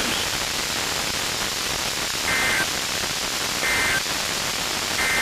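Weather radio receiver static hiss. In the second half, three short two-tone SAME data bursts sound, each about a third of a second long and about 1.3 s apart: the end-of-message code that closes a NOAA Weather Radio alert or test.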